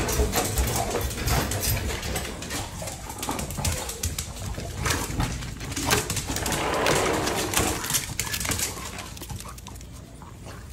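Dogs moving about and making low vocal noises, amid many sharp clicks and rattles; it quietens about eight seconds in.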